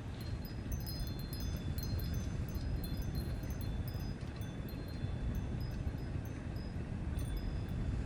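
Wind chimes tinkling lightly, scattered short high notes at a few fixed pitches, over a steady low rumble.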